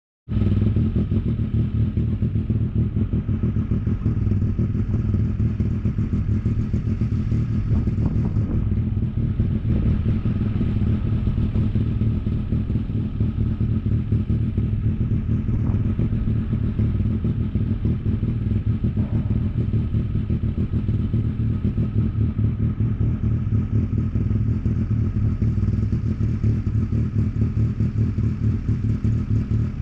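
An engine running steadily at a constant speed, a low even drone with no revving.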